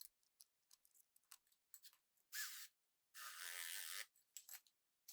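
Faint clicks and light knocks of caster hardware being handled during assembly, with two short rasping noises a little past the middle, the second lasting about a second.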